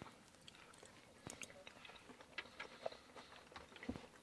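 Faint eating sounds: knife and fork clicking and scraping on plates, and chewing, in scattered small clicks.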